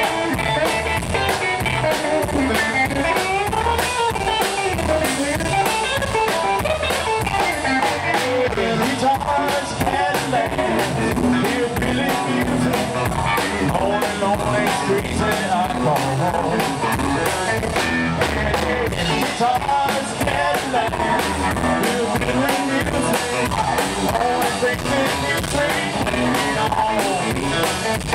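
Rockabilly trio playing live: twangy electric guitar over a standing drum kit and upright bass, with a steady beat.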